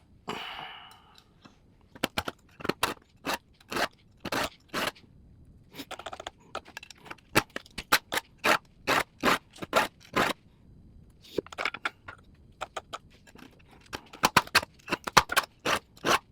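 Hand file stroked across the dull cutter teeth of a small electric chainsaw's chain to sharpen them: short rasping strokes, about two a second, in runs with brief pauses.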